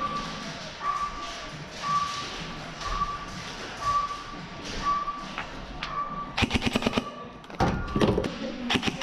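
Airsoft rifles firing rapid full-auto bursts, three strings of quick shots in the last few seconds. A faint beep repeats about once a second before the shooting starts.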